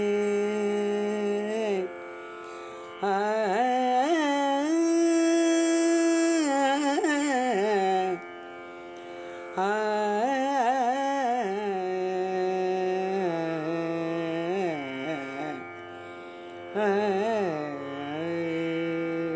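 Carnatic-style devotional bhajan music: a single melodic line with sliding, wavering ornaments, in long phrases broken by three short pauses.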